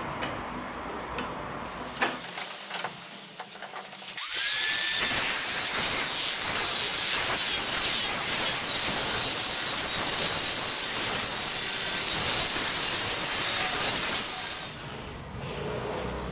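A power tool starting, its motor whine rising briefly, then running loud and steady for about ten seconds before it stops. A few light clicks come before it starts.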